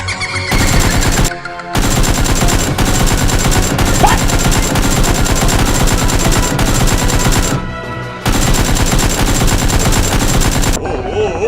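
Rapid automatic gunfire sound effect, firing almost without pause and breaking off briefly twice.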